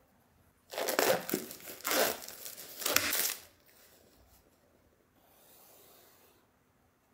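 Clear plastic shrink-wrap being torn and peeled off a phone's retail box, crinkling loudly in several swells for about three seconds. About five seconds in there is a faint, soft rustle.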